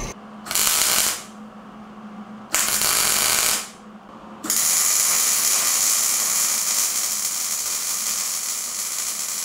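Wire-feed welder arc crackling while welding steel square tubing: two short bursts, then a long continuous weld from about halfway through.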